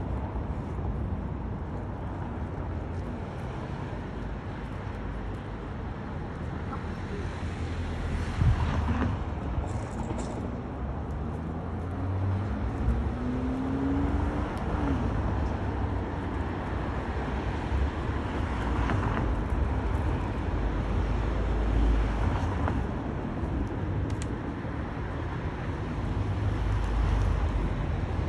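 Low engine rumble of a motor cruiser moving slowly in to moor, with an uneven low rumble rising and falling throughout.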